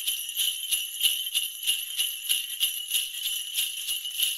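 Sleigh bells jingling, shaken in an even rhythm of about three to four shakes a second.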